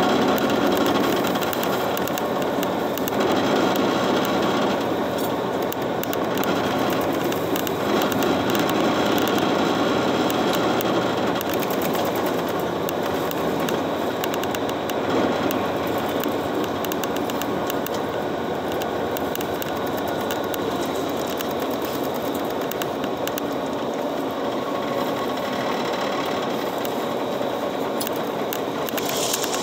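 City bus driving at a steady speed, heard from inside the cabin: an even mix of engine and road noise with no let-up.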